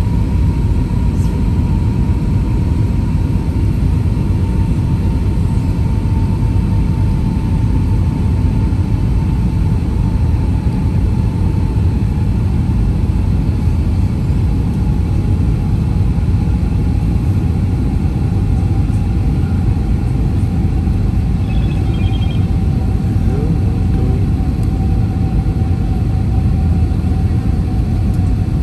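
Steady roar inside the cabin of an Airbus airliner descending to land, with an engine whine that slowly falls in pitch.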